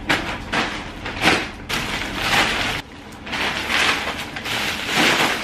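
Cardboard and plastic packaging being pulled open and handled: a run of rustling, scraping strokes, some brief and some drawn out for about a second.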